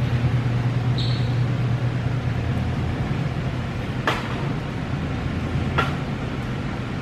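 Supermarket background noise: a steady low hum, with a short high beep about a second in and two faint clicks later on.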